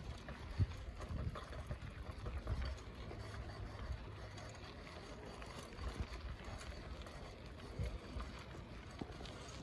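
Wind noise on the microphone and low rumble from riding a bike along a street. There is a sharp knock about half a second in and a few softer bumps.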